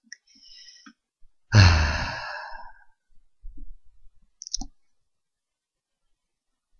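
A person breathes in, then gives a heavy voiced sigh about a second and a half in that fades over about a second. A few small clicks follow.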